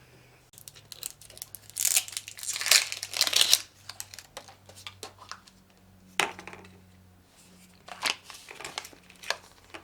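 Toy packaging crinkling and tearing as it is opened by hand, in irregular bursts, loudest a couple of seconds in, with shorter crinkles later.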